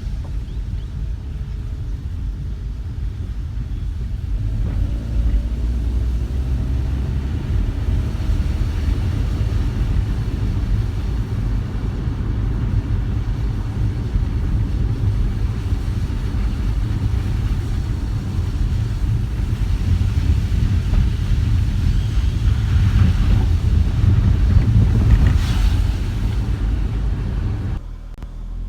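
Car driving on the road: steady low rumble of road and engine noise, with extra hiss building around the last third, then a sudden drop in level just before the end.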